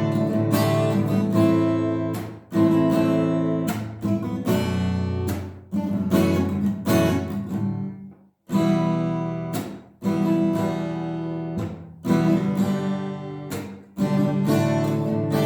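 Acoustic guitar strummed slowly with a pick, a new chord struck every two to three seconds with short breaks between chords.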